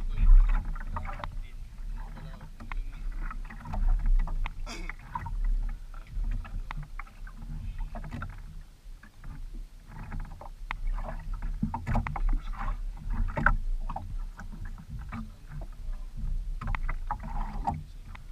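Small wooden outrigger fishing boat on the sea: water sloshing against the hull over a steady low rumble, with scattered knocks and clicks from the boat and the fishing tackle being handled.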